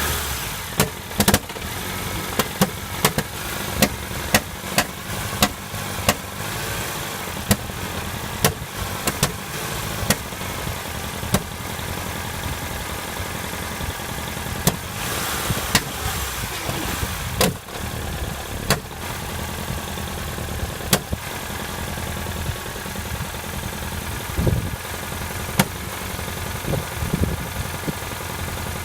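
Ford Fiesta idling with an unidentified knock: sharp irregular knocks over the steady engine sound, close together at first and sparser later.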